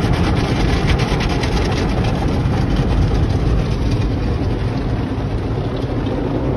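Automatic car wash heard from inside the car's cabin: spinning cloth brushes and water spray beating on the windshield and body, a loud steady rumble with a hissing rush.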